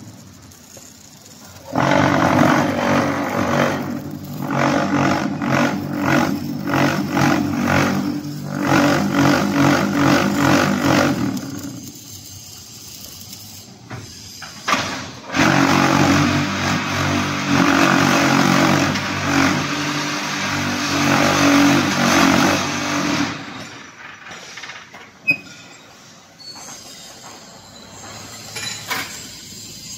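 Concrete block-making machine running a moulding cycle: its mould vibrators run in two long spells, about ten and eight seconds, with a steady low hum and rattle as the concrete is shaken into the mould and compacted, with quieter machine noise between and after.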